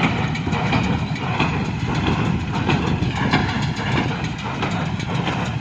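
John Deere 5105 tractor's diesel engine running steadily while it drives a New Holland BC5060 square baler, with the baler's machinery clattering over the engine drone.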